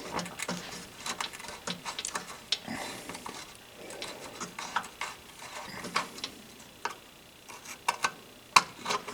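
Small metallic clicks and taps from a screwdriver and slot-head screws being worked out of a pinball machine's start-button switch assembly, irregular, with two sharper clicks near the end.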